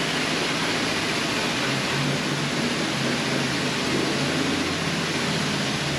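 Steady hiss of loud background noise with a faint low hum and no distinct events.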